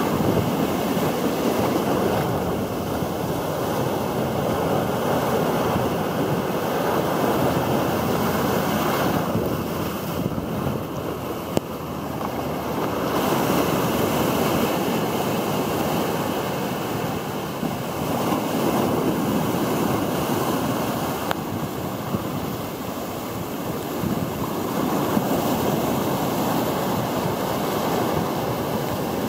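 Shorebreak waves breaking close by and their foam washing up a sandy beach, the rush of surf swelling and easing every few seconds.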